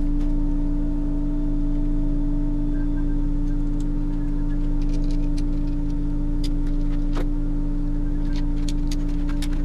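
Steady electrical mains hum with a strong buzzing tone, with scattered light clicks and taps from hands handling a circuit board and plastic parts.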